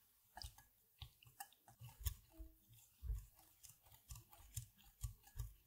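Wire hand whisk stirring dark chocolate and cream together into a ganache in a glass bowl. It makes faint, irregular clicks and scrapes against the glass, with soft knocks, a few a second.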